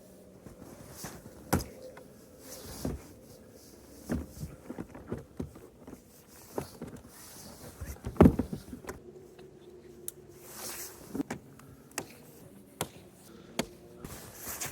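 Scattered clicks and knocks of plastic and metal as a snowmobile's hood is fitted and its latch pins locked, with one louder knock about eight seconds in and a short scrape just after.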